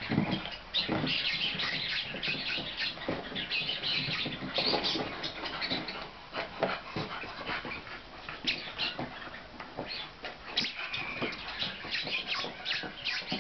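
Wire fox terrier rummaging in a small cardboard box, pulling out its contents: a run of scratchy rustling and tearing of cardboard and paper.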